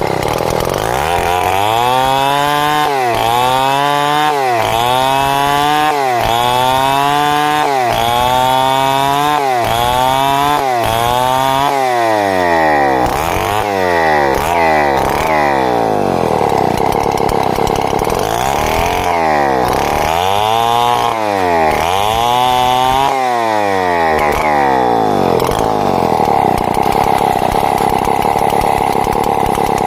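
Two-stroke chainsaw running while sawing timber into boards, its engine pitch rising and falling in repeated swells about once a second for much of the time, steadier near the end.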